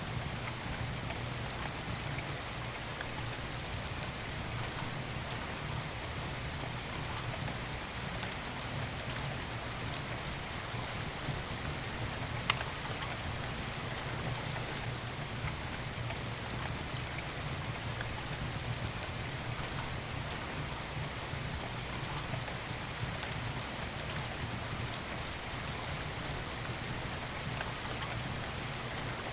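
Steady rain falling, with faint scattered crackles and one sharp pop about halfway through from a wood fire in a fireplace.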